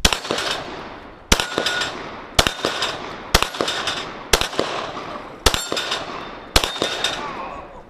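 Handgun fired seven times at a steady pace, about one shot a second, each shot followed by a long echo that fades out before the next.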